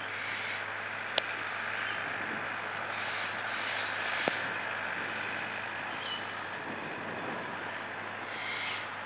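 International 743XL tractor's diesel engine running steadily under load while pulling a harrow through the soil, with two sharp clicks, about a second in and about four seconds in.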